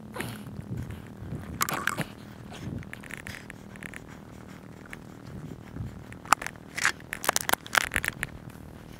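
Plastic water bottle crackling and scraping as it is handled, then a quick series of sharp clicks and knocks from gear being picked up and handled in the second half.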